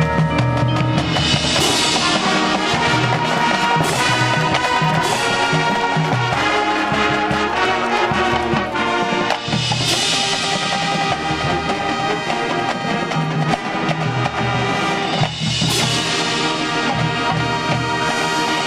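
High school marching band playing its field show: brass carrying the melody over drums and front-ensemble mallet and timpani percussion, with a few sharp accents along the way.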